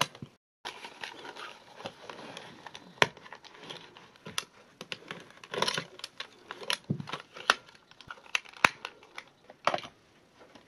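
Irregular sharp plastic clicks, taps and rattling from handling a small portable cassette recorder: a screwdriver working at its case and AA batteries being handled.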